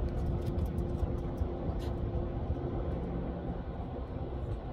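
Wind rumbling and buffeting on the phone's microphone, with a faint steady hum during the first second.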